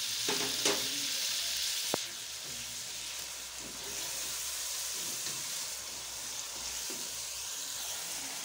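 Chicken, tomatoes and green chillies sizzling in hot oil in a pan as yogurt is stirred in with a spatula. The sizzle is loudest at first, then settles lower after a sharp click about two seconds in.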